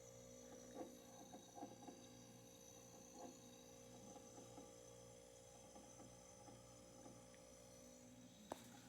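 Haier mini refrigerator's compressor running with a faint steady hum, with soft, irregular sounds of refrigerant flowing through the lines. A sharp click near the end.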